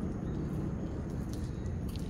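A steady low rumble of noise with no rise or fall, and a few faint, short high ticks in the second half.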